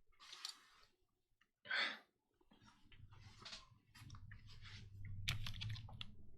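Keystrokes on a Keycult No.1/65 mechanical keyboard with Cherry-housing switches, UHMWPE stems and a brass plate: faint scattered clicks at first, then a quick run of typing near the end. A short louder whoosh about two seconds in.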